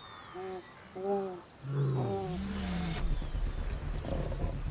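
Wildebeest calf bleating in short calls, three times, with a deeper call about two seconds in, then a low steady rumble; small birds chirp in the background.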